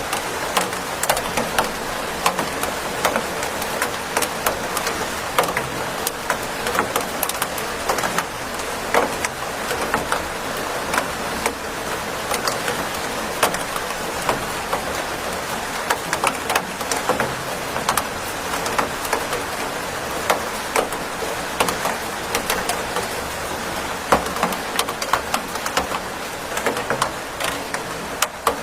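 Steady rain falling: a constant hiss of rain with many individual drops tapping irregularly throughout.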